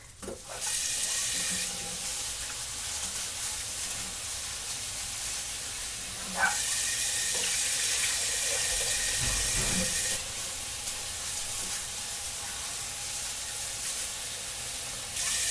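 Kitchen tap running into a sink while raw chicken is rinsed. The flow gets stronger about six seconds in with a light knock, eases off about ten seconds in, and picks up again near the end.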